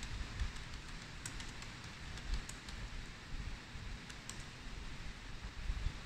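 Typing on a laptop keyboard: irregular key clicks as lines of code are entered, over a low background rumble.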